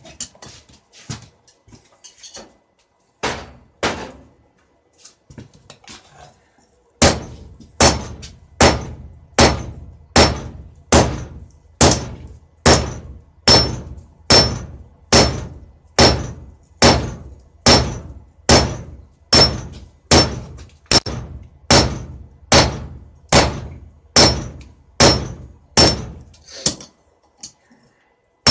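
Blacksmith's hammer forging a steel knife blade on an anvil. A few scattered, lighter knocks come first; then, about seven seconds in, steady heavy blows start at a little more than one a second, each with a short high ring. They stop shortly before the end.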